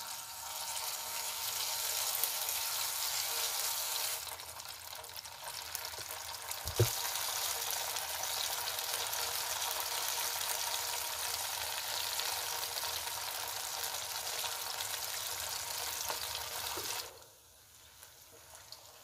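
Marinated beef pieces deep-frying in hot oil in a kadhai, a steady sizzle, with a single knock about a third of the way through. The sizzle drops away abruptly near the end.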